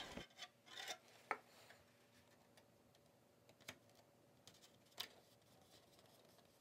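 Mostly near silence, with faint rubbing and a handful of small clicks as fingers press and smooth duct tape onto a 3D-printed plastic tail surface.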